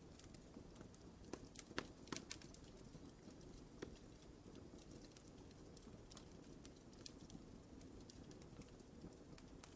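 Wood fire crackling in a fireplace: scattered sharp pops and snaps over a low steady rumble of flame, more of them in the first few seconds.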